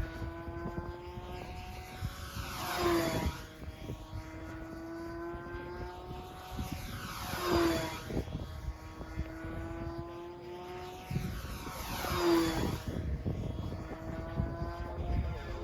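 Control-line stunt plane's engine and propeller running steadily as it circles, growing louder with a sweep in pitch each time it passes, about every four and a half seconds, three times. Rough wind noise on the microphone underneath.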